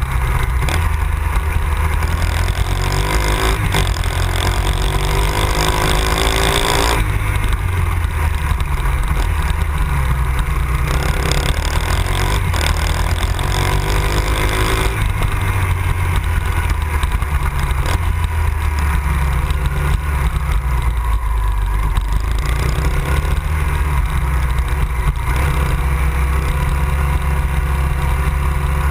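Honda XR 250 Tornado's single-cylinder four-stroke engine running under way, its note rising twice as it accelerates, once about three seconds in and again about eleven seconds in.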